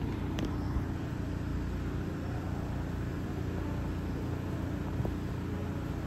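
Steady low rumble and hum of PATH rail cars in the station, with a couple of faint clicks.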